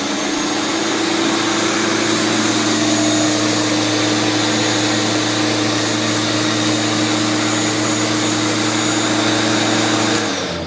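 Ryobi RYAC130 13-inch 11-amp corded electric lawn mower running at full speed, its blade spinning freely and not cutting: a steady hum with a high whine, sounding much like a vacuum cleaner. Near the end it stops and spins down, its pitch falling.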